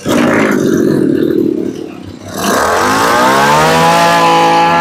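Ryobi brush cutter's small engine running, then revved up about two seconds in, its pitch climbing quickly and holding at a steady high-speed run.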